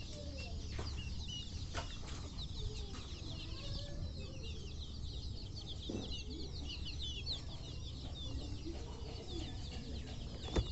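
A flock of young local chickens peeping continuously in many short, high chirps, with occasional lower clucks among them. A sharp click near the end.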